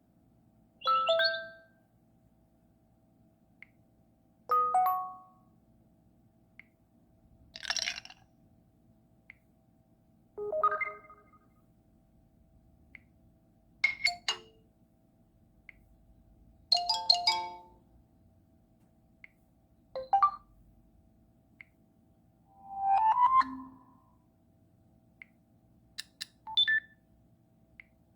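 A series of cell phone notification tones played one after another: about nine short chimes and jingles, each different, spaced roughly three seconds apart, with a faint steady hum between them.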